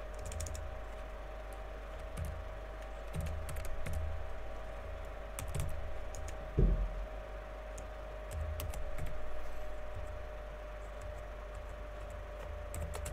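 Computer keyboard typing in short bursts of keystrokes, with one heavier, duller thump about six and a half seconds in, over a faint steady hum.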